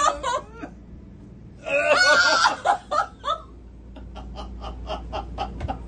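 A person laughing in short bursts, ending in a quick run of breathy laughing pulses.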